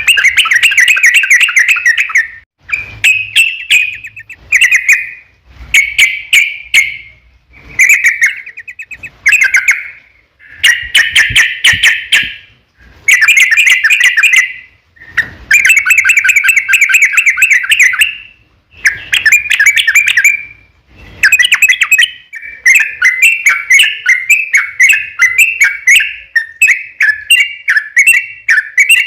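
Yellow-vented bulbul (trucuk) singing in loud, rapid chattering phrases of one to three seconds with short pauses between them. Near the end the phrases run together into a continuous fast string of notes. This is the long 'ropel' song used as a lure to get other trucuk birds to answer.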